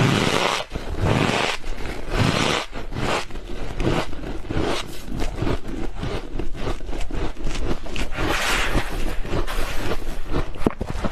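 Squeaky freezer frost being scraped and crunched close to the microphone: a few longer rasping strokes, then a quick run of short crunches.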